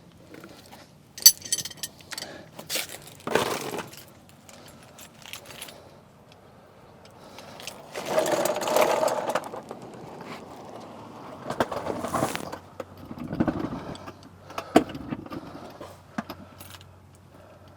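Metal sockets and hand tools clinking and rattling as they are handled and sorted, with several sharp metallic clinks and stretches of rummaging and scraping.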